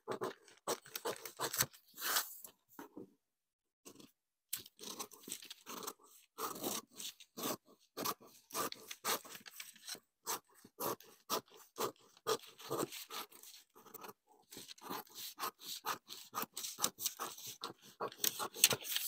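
Scissors cutting through pattern paper: a run of quick snips and paper crunches, with short pauses about three and a half seconds in and again around ten and fourteen seconds.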